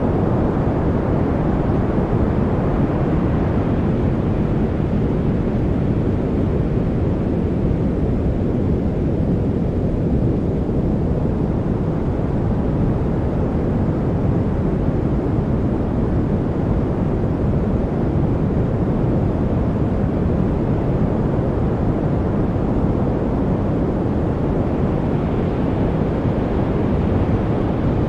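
Continuous study-noise track: a steady, deep rumbling hiss, weighted to the low end, with the higher hiss swelling and easing slowly.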